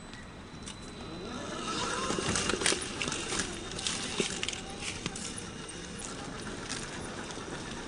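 Axial SCX10 II RC crawler driving over rough trail ground: irregular crunching, clicks and knocks from tires and chassis on rocks and dirt.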